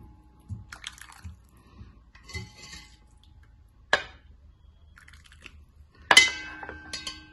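A ceramic bowl knocking and clinking against a plate as it is set down, with scattered soft taps, a sharp click about four seconds in and a louder clink that rings briefly just after six seconds.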